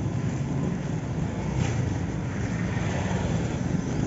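Small vehicle engine running steadily while riding along a road, with road and wind noise.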